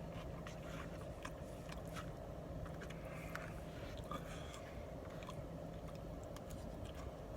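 A person chewing a mouthful of burrito bowl, with small irregular mouth clicks and scrapes, over a steady low hum.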